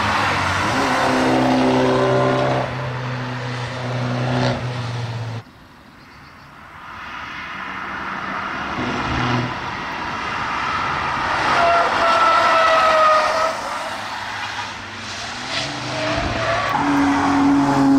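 Cars driving past on a race track at speed. First an Abarth 595's turbocharged four-cylinder engine holds a steady note and is cut off abruptly about five seconds in. Then several cars pass in turn, their engines rising and falling through the corner, with a brief high tone in the middle.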